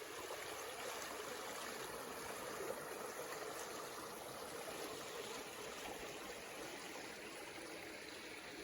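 Steady rush of a stream running past close by.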